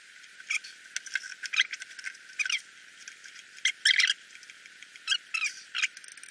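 Inflatable pump wedge being pumped up by its hand bulb, squeaking in short high chirps, some sliding in pitch, at irregular intervals as the bag swells under load. The squeaks are loudest about four seconds in.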